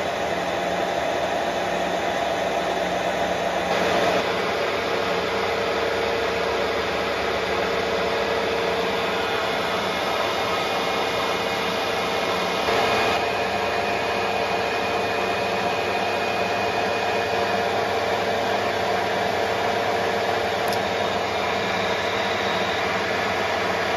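Harrison M400 lathe running and turning down the end of a round bar: a steady hum from the machine's motor and gearing, with the hiss of the tool cutting. The sound shifts a little about four seconds in and again about thirteen seconds in.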